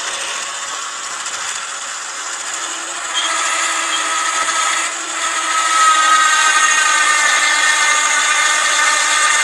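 Battery-powered 12-volt electric winch of a Gorillabac log lift running under load, reeling in rope to drag a log across the ground. Its steady whine gets louder about three seconds in and again near six seconds.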